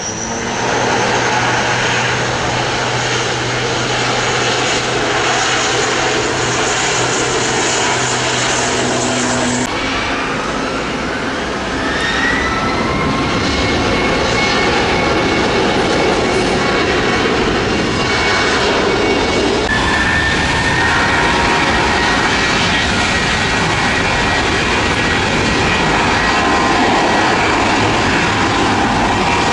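Aircraft engines running at takeoff power: a loud, steady noise with whining tones that rise in pitch. The sound changes abruptly about ten seconds in.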